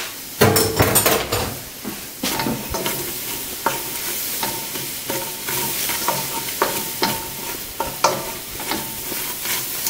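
Flour frying and sizzling in hot fat in a stainless steel pot while a wooden spoon stirs it, scraping and knocking against the pot, the start of a roux. The spoon strikes are loudest about half a second to a second in.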